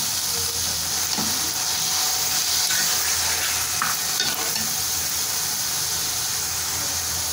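Shrimp, chicken and vegetables frying in oil in a metal wok, sizzling steadily while a spatula stirs them, with a few light scrapes against the pan. The shrimp has just gone into the hot oil.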